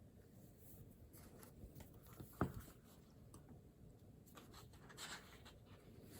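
Faint scratching of writing on paper in short strokes, with one sharp tap about two and a half seconds in.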